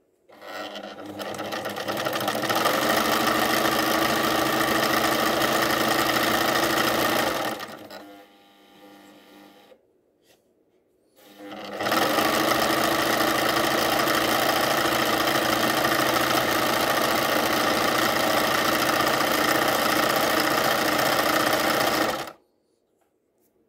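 Pfaff 209 sewing machine sewing a zigzag stitch through layered heavy cotton fabric: it runs up to speed over the first couple of seconds, runs steadily, then slows and stops about ten seconds in. It starts again a second or so later, runs steadily at speed, and stops abruptly near the end.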